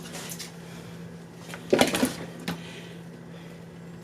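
Items and containers being handled in a refrigerator: a short cluster of clattering knocks a little under two seconds in, then one lighter knock, over a steady low hum.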